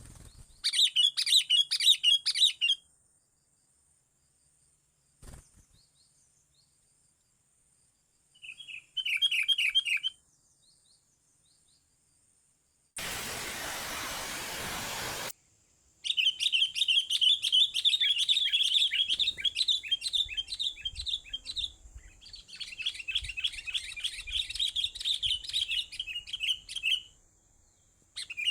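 A bird singing in bursts of rapid, repeated high chirps: a short burst about a second in, another near nine seconds, then two long runs in the second half. About halfway through, a couple of seconds of even hiss sit between the songs, and a faint steady high-pitched whine runs underneath.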